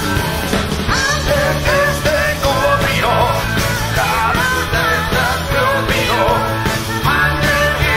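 A live rock 'n' roll band playing, heard through the mixing-desk feed: steady bass and drums under a bending melody line, with singing.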